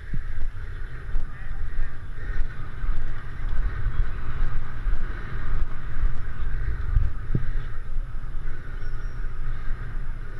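Wind buffeting a moving camera's microphone as an uneven low rumble, over a steady hiss of inline-skate wheels rolling on asphalt.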